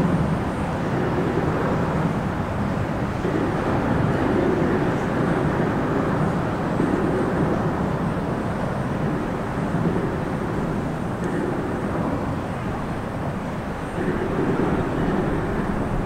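Highway traffic crossing the bridge overhead, heard from beneath the deck: a continuous rush of car tyres and engines that swells and fades every few seconds as vehicles pass.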